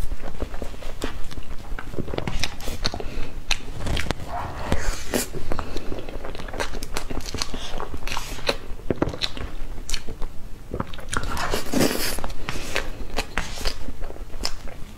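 Close-miked mouth sounds of eating soft cream cake: chewing, wet smacks and clicks, with a spoon now and then scooping cake off the foil board.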